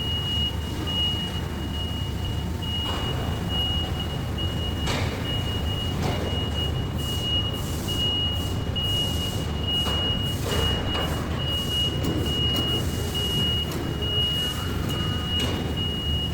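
Machinery running with a steady low hum, a single high-pitched beep sounding on and off about once a second, and a few faint clicks.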